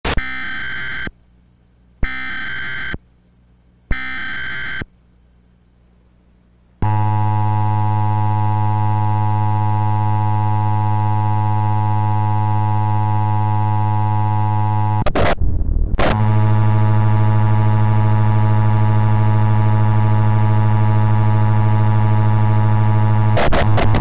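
Emergency Alert System signal from a HollyAnne MIP-921 encoder: three bursts of digital header data about a second each, then after a short pause the two-tone attention signal, distorted into a harsh steady buzz. About fifteen seconds in it breaks up briefly with crackles, then the buzzing tone carries on.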